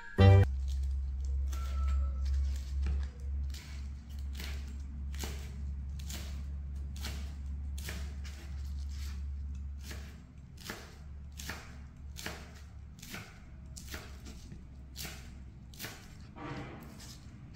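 A kitchen knife chopping a bundle of green leaves on a plastic cutting board, in steady strokes of about two a second.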